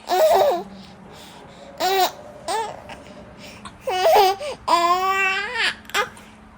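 A baby babbling in a few short, high-pitched coos and squeals, then one longer, drawn-out fussy call about five seconds in.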